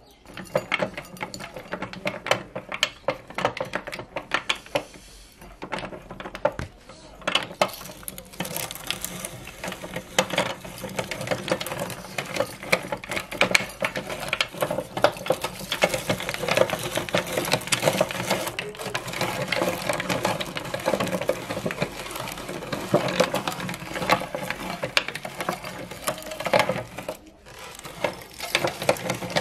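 Manual cast-metal meat grinder turning as its auger crunches and snaps wooden matchsticks, a dense, rapid clatter of clicks and cracks that grows louder after several seconds.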